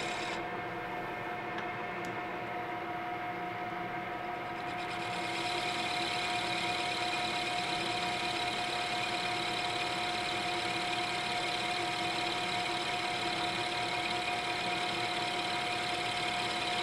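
Metal engine lathe running steadily, its motor and gearing giving a constant hum with several steady tones, while a tool bit turns a wooden cylinder-head pattern. About five seconds in, a higher hiss of the cut joins and stays.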